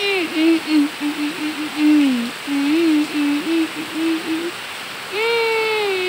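A person humming a wordless tune in long, wavering notes with short breaks, over the steady hiss of rain falling on leaves.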